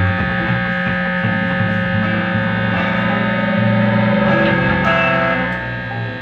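Distorted electric guitars holding a loud, humming drone of sustained tones, with little or no drumming, easing off slightly near the end.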